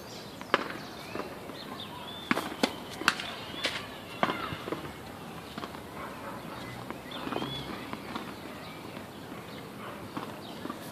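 Sharp pops of tennis balls being hit and bounced on clay courts, several in quick succession in the first half, with birds chirping in the background.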